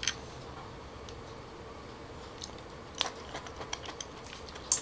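Close-miked eating of boiled hairy cockles: quiet chewing with a few sharp clicks, the clearest about three seconds in and just before the end.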